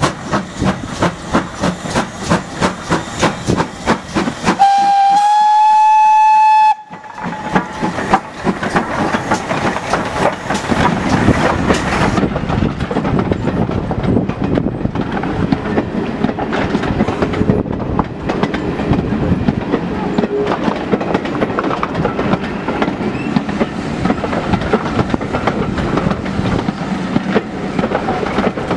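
Two steam locomotives working hard together, their exhaust beats coming about two or three a second, with a steam whistle sounding for about two seconds some five seconds in. After it cuts off, a train of carriages rolls steadily past with wheels clattering on the rail joints.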